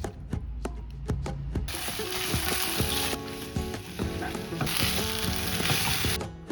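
Stir-fry sizzling in hot oil in a pan, starting about two seconds in, easing off for a moment in the middle, then coming back and cutting off near the end. Guitar background music plays underneath.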